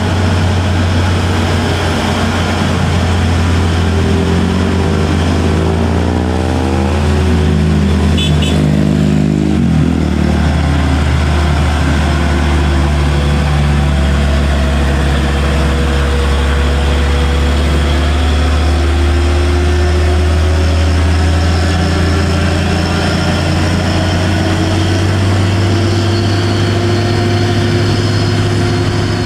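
Heavy diesel truck engine labouring up a steep climb. Its pitch rises and drops several times in the first ten seconds as it goes through the gears, then climbs slowly under load.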